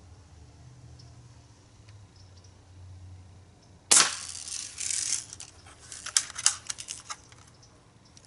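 Crosman 760 Pumpmaster air rifle firing one shot about four seconds in, a single sharp crack, followed by a few seconds of quick clicks and rattles from handling the gun.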